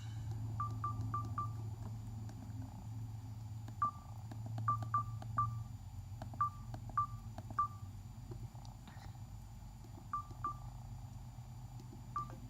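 Short, single-pitch keypad beeps from a Samsung Convoy phone, each with a faint button click. They come singly and in quick runs of two to four as keys are pressed.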